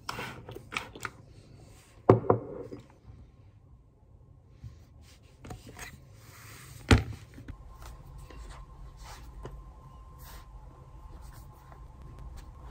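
Desk handling sounds: paper rustling, a quick double knock about two seconds in and one sharp knock about seven seconds in, then the light scratch of a pen writing on notebook paper.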